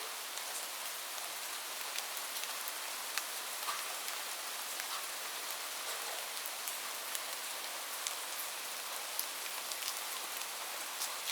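Steady rain falling, a constant hiss with many separate drops tapping sharply throughout.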